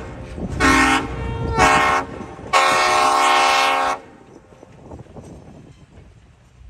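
Diesel locomotive air horn of Southern 6900 and 6133 sounding two short blasts and then one long blast, a loud multi-note chord, over a low rumble. The horn stops about four seconds in, leaving the quieter rumble.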